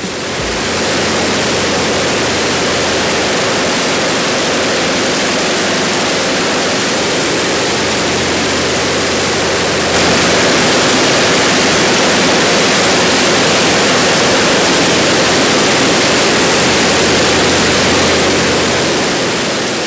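Radial aircraft engine and its propeller running steadily on a test stand during a test run, a loud, even rushing roar. It gets louder about halfway through and fades out near the end.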